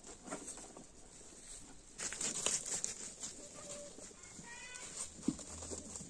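A chicken clucking in a quick short run of notes, amid scattered light clicks and a brief burst of rustling.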